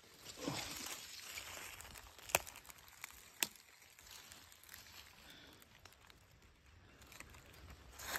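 Dry leaf litter rustling and crackling as a hand picks through it, with two sharp snaps about a second apart a couple of seconds in.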